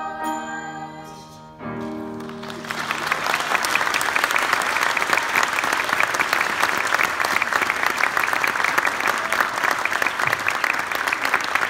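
A middle school choir holds the final chord and releases it about two seconds in, then the audience breaks into loud, sustained applause.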